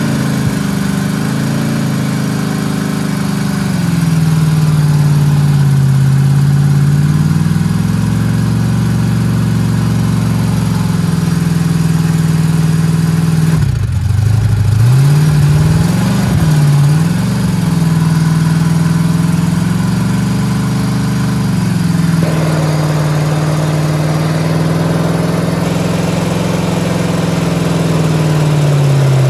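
Ford F150 truck engine running with Dr Pepper in the crankcase in place of oil, being run until it seizes. The revs rise and fall every few seconds. There is a brief break about fourteen seconds in, and the sound grows rougher and noisier in the last seven seconds.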